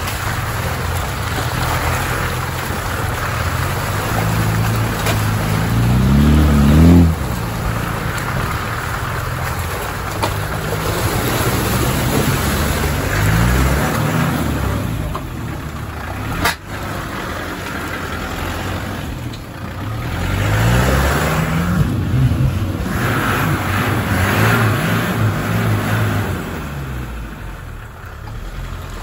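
Off-road 4x4's engine revving up in repeated surges, the loudest about six to seven seconds in, over a steady rushing noise, as it drives through sticky red clay. A single sharp knock about sixteen seconds in.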